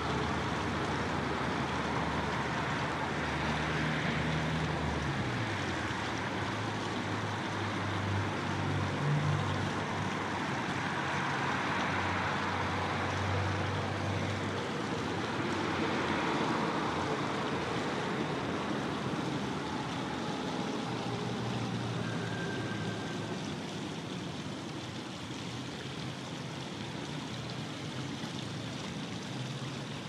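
Road traffic noise: a steady rush, with the low engine hum of passing vehicles rising and falling between about four and sixteen seconds in.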